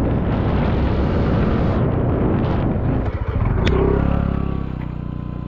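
Motor scooter engine running while the scooter is ridden, with heavy road noise on the microphone. About three and a half seconds in, the sound cuts to a steadier, fading engine hum heard from just behind the scooter.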